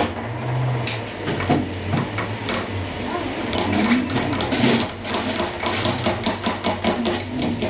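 Metal tools and parts clicking and tapping irregularly over a low steady machine hum.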